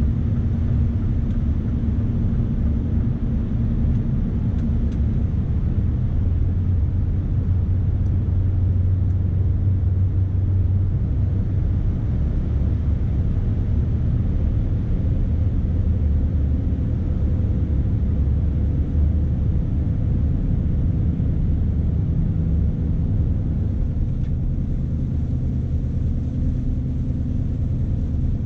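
Scania S520's V8 diesel engine running steadily while the truck is under way, a low drone mixed with road noise as heard in the cab. The engine note shifts a little a couple of times.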